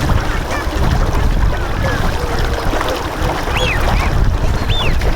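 A flock of Bewick's swans (tundra swans) calling, with many short overlapping calls, a few rising and falling sharply. Heavy wind rumble on the microphone lies under the calls and is the loudest sound.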